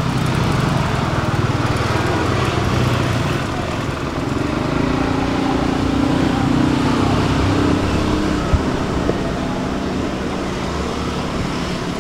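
A small engine running steadily, with a hum that grows stronger in the middle, and one short sharp click about eight and a half seconds in.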